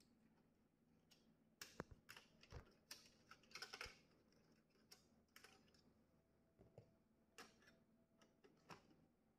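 Faint clicks and taps of plastic and sheet-metal parts being handled inside a disassembled HP LaserJet Pro M227fdw printer: a dense run of clicks between about one and a half and four seconds in, then a few single clicks.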